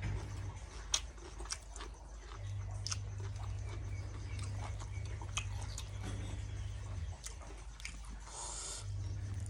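A person chewing and biting grilled pork salad close to the microphone, with irregular wet mouth clicks. A low hum in the background drops out for stretches and comes back.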